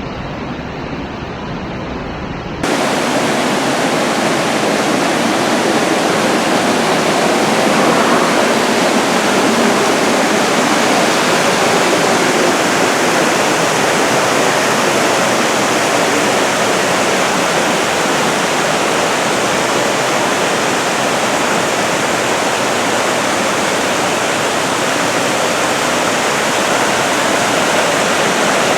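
Waterfall, a loud steady rush of falling water that starts abruptly about two and a half seconds in; before that, a quieter rushing sound with faint steady high tones.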